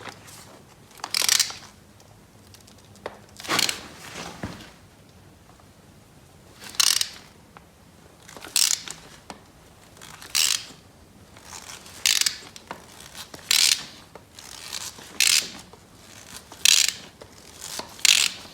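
Hand ratchet wrench clicking in short bursts about every one and a half to two seconds, around ten times, as it is swung back and forth on a nut welded to a broken exhaust manifold stud to back the stud out of the cylinder head.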